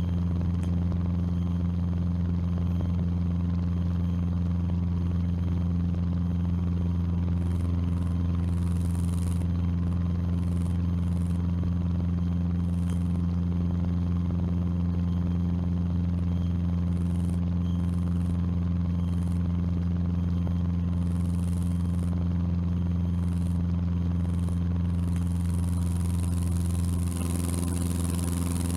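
Cessna 150's four-cylinder Continental O-200 engine and propeller droning steadily in climbing flight, heard from inside the cockpit.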